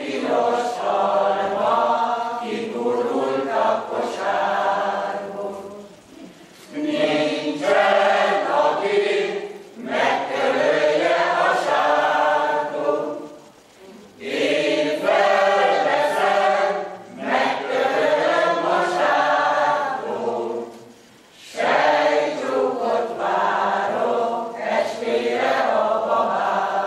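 Mixed choir of men's and women's voices singing a Hungarian folk song unaccompanied, in phrases of several seconds with short breaks for breath between them.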